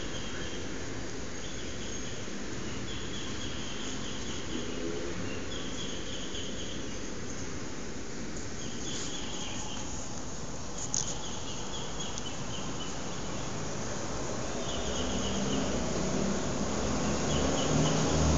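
Crickets chirping in short trills, repeated every second or two over steady background noise. A single click comes about eleven seconds in, and a low rumble builds near the end and becomes the loudest sound.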